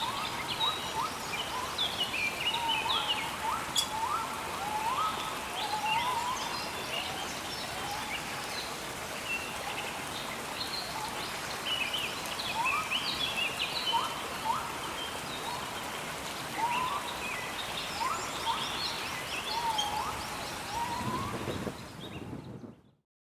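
Rainforest soundscape: many birds calling in short rising chirps over a steady hiss of rain. It cuts off just before the end.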